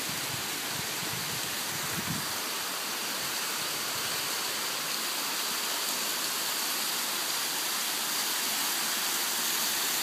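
A small waterfall spilling down a moss-covered rock face: a steady rush of falling water, growing slightly louder near the end.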